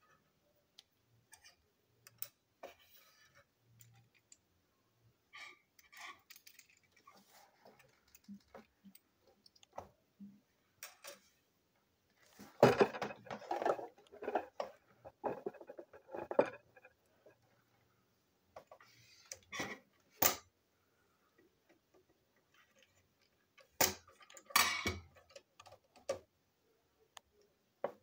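Small plastic toy train engine parts clicking and clattering as they are handled, pulled apart and set down on a table. The sound comes as scattered light clicks, with a denser run of clatter about halfway through and a few sharper single clicks later.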